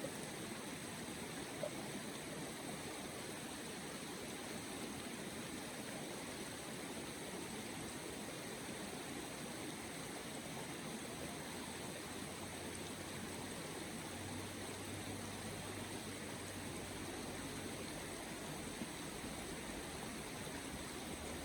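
Steady, even rushing noise with no distinct events, and a faint low hum joining about two-thirds of the way through.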